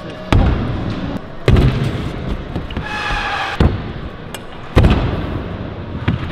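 Stunt scooter hitting the wooden ramp and box of an indoor skatepark as the rider tries a trick: four loud thumps and slams over about four and a half seconds, echoing in the large hall.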